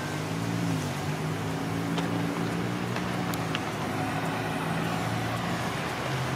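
Diesel locomotive engine running with a steady low hum whose pitch wavers slightly, with a few faint clicks over it.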